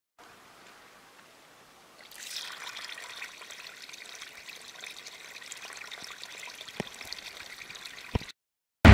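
Water pouring in a steady stream from the metal drain tap of a plastic drum and splashing onto gravel. It starts about two seconds in, and two small clicks come near the end.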